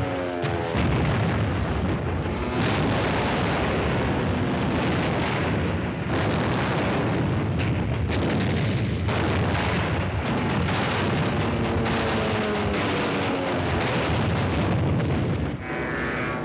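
Film battle sound effects: a dense, continuous barrage of explosions and anti-aircraft gunfire, mixed with an orchestral score whose pitched phrases rise at the start and fall again later on.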